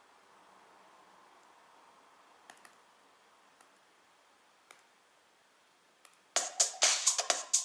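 A few faint clicks over low hiss, then a loud electronic drum-machine beat of a techno track starts suddenly about six seconds in, with rapid, evenly spaced hits.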